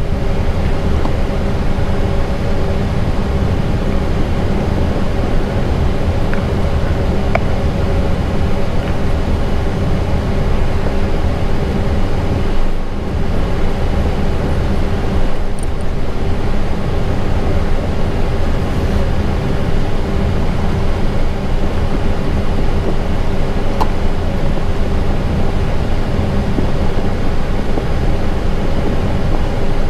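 Steady cockpit noise of an Airbus A320 on the ground with its engines at idle during taxi: a low rumble under an even rushing hiss, with a faint steady hum.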